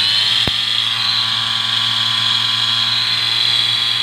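Small DC motor of a homemade mini grinder built from a Tamiya Mini 4WD chassis, spinning its grinding disc with no load. It makes a very loud, steady high whine whose pitch rises briefly at first as it comes up to speed. A single click sounds about half a second in.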